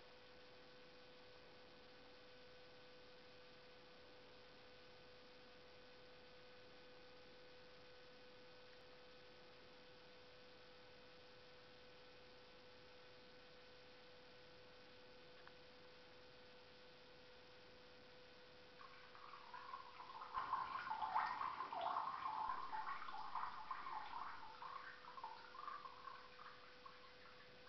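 A cat urinating into a toilet bowl: a trickle of urine splashing into the water starts about two-thirds of the way in, builds, then tapers off and stops near the end. A faint steady hum runs underneath.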